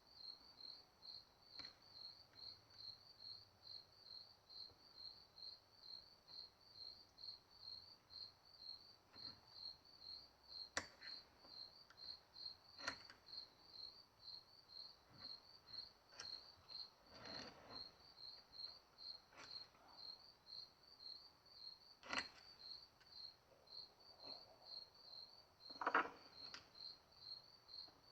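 A cricket chirping in an even, steady rhythm, high in pitch, with a few faint sharp clicks and taps from small hand tools.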